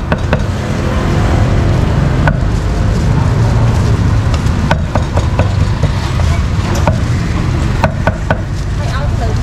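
Sharp knocks of a cleaver chopping meat on a board, coming singly and in short clusters, over a steady low rumble of traffic.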